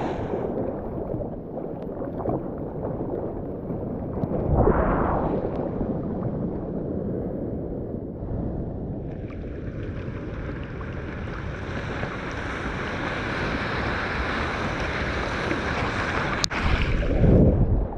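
Seawater sloshing and splashing right at the microphone, with wind on the microphone. There is a splash about four and a half seconds in, then a hissing rush of whitewater for most of the second half, and a loud splash near the end.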